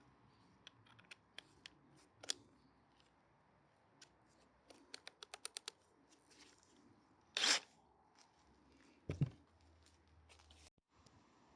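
Handling noises between screws while testing a cordless impact wrench: scattered clicks and taps, a quick run of about eight clicks near the middle, a short noisy burst about two thirds of the way through, then a low thump.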